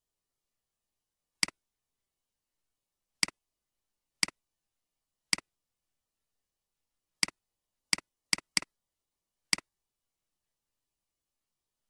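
Computer mouse button clicking: nine single clicks at uneven intervals, each a sharp press followed by a softer release, with three in quick succession about two-thirds of the way through and dead silence between them.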